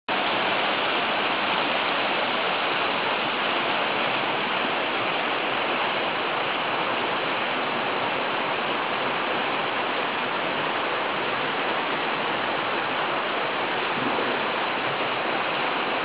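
The Virgin River's water rushing steadily through the Zion Narrows, an even rush with no breaks.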